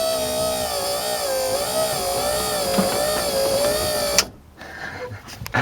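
Third-gen Camaro/Firebird electric hatch pull-down motor running with a steady whine that wavers slightly in pitch, then cutting off abruptly about four seconds in; a knock comes near the end.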